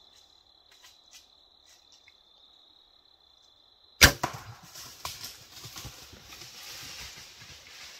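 Bow shot at a whitetail buck about four seconds in: one sharp, loud crack of the release and hit. It is followed by a rustling, crackling rush of the deer crashing away through dry leaves and brush. Before the shot a steady high insect tone runs, with a few faint ticks.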